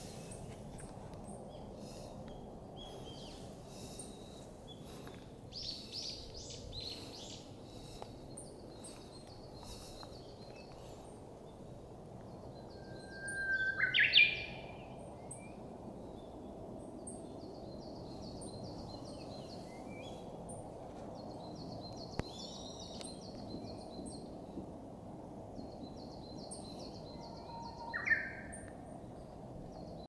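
Japanese bush warbler (uguisu) singing its song about halfway through: a long held whistle that jumps up into a quick high flourish. A shorter phrase of the song comes near the end. Other small birds call throughout with high, short, repeated notes and even trills, over a steady low rush.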